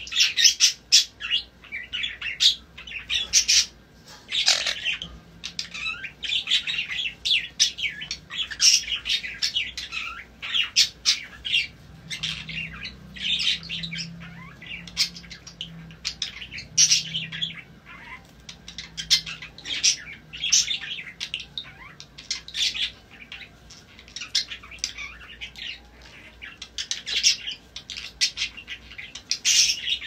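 Small pet parrots chirping and squawking: a rapid, continual string of short, high calls.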